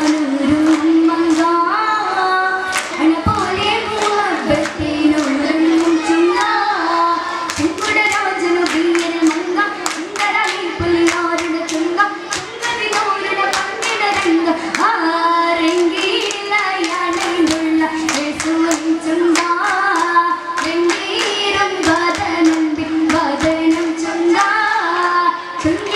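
Girls' chorus singing a Mappila song with sharp, rhythmic hand-clapping, the song and clapping of an Oppana dance. The claps come thicker at times.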